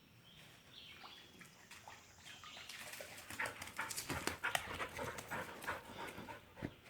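An Australian Shepherd panting in quick short breaths, louder from about halfway in.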